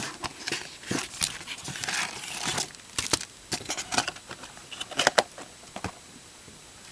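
A shrink-wrapped blaster box of baseball cards being opened: plastic wrap crinkling and tearing, and the cardboard box handled with scattered clicks and rustles. It is busiest in the first few seconds and again briefly in the middle.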